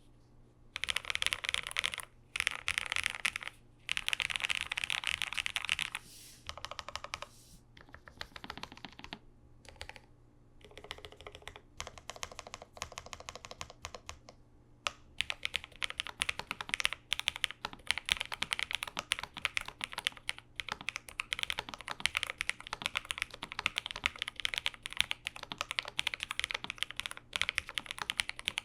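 Typing on a Lofree Flow Lite low-profile mechanical keyboard with Lofree Kailh full-POM switches: a stream of key clicks, in dense clusters for the first few seconds, sparser through the middle, then steady typing from about halfway.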